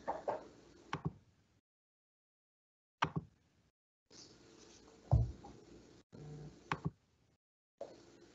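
A few faint clicks and knocks over a webinar call's audio, the loudest a soft thump about five seconds in, between stretches of dead silence where the call audio gates out.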